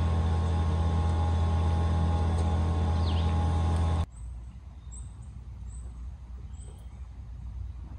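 A loud, steady motor drone with a low hum cuts off abruptly about four seconds in. After it stops, a quiet outdoor background remains, with a few short, high bird chirps.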